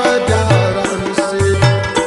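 Instrumental music with a steady hand-drum beat, low drum notes about twice a second, under sustained melodic instruments; no singing.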